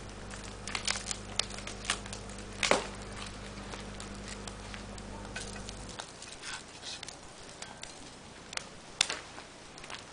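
Fire burning in a small mesh fire pit, crackling with irregular sharp pops and snaps. A steady low hum underneath stops about six seconds in.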